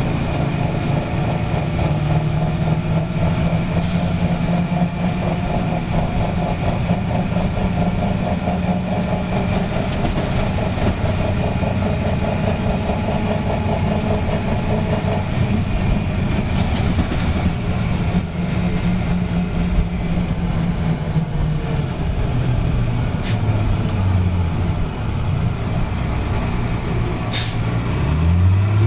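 Detroit Diesel 6V92TA two-stroke V6 diesel in a 1985 GMC RTS bus, running steadily. Its pitch settles lower about halfway through, then rises sharply near the end as the engine revs up.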